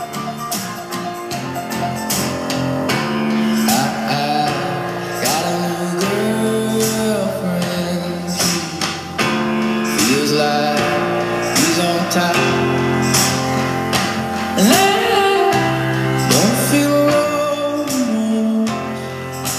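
A song with singing, guitar and tambourine over a steady beat, played loud through a Sanyo MX-650K boombox's speakers. The voice comes in a few seconds in.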